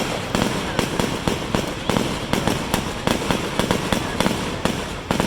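Fireworks going off in rapid succession: a dense, unbroken run of bangs and crackles, many a second.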